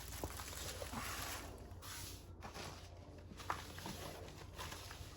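Crinkling and rustling of a rolled diamond-painting canvas being handled and pressed flat, with a couple of light taps.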